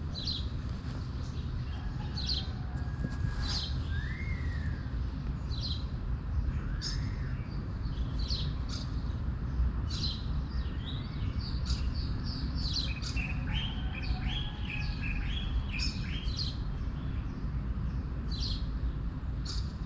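Small birds chirping, with many short, sharp high chirps scattered through, a couple of brief rising-and-falling whistled notes, and a quick run of lower warbling notes about two-thirds of the way in. A steady low rumble runs underneath.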